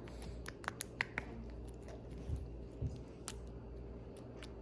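Slime being squeezed and worked by hand, giving an irregular scatter of small sharp pops and clicks.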